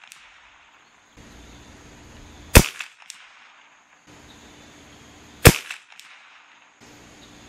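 Two rifle shots from a CZ 457 bolt-action .22 Long Rifle, about three seconds apart, each a sharp crack followed about half a second later by a much fainter click.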